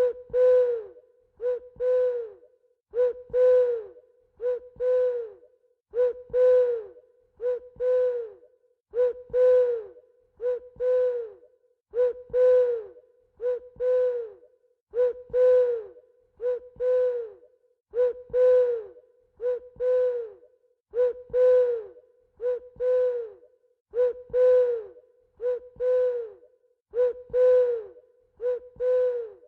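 An owl hooting in evenly repeated pairs, a short hoot followed by a longer one, a pair about every second and a half. Each hoot is a low held note that drops in pitch at its end.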